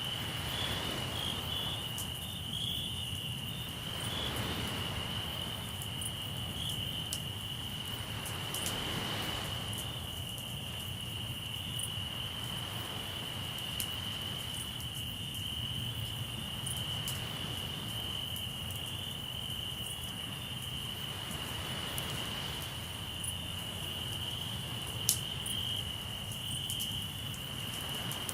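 Crickets trilling steadily in one continuous high note, over waves washing ashore in swells every four or five seconds. A campfire crackles with scattered small pops and one louder snap near the end.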